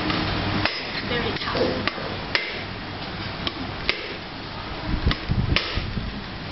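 Heavy cleaver striking a mature brown-shelled coconut held in the hand, about eight sharp knocks at uneven intervals, cracking the hard shell open.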